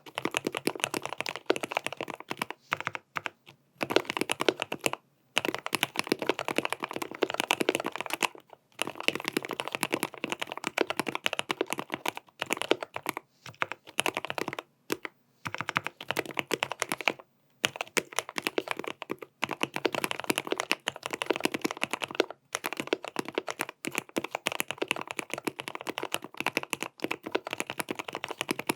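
Fast typing on a GMMK Pro custom mechanical keyboard with stock Gateron North Pole linear switches, tape-modded and fitted with switch pads: a dense stream of key clicks in runs broken by short pauses.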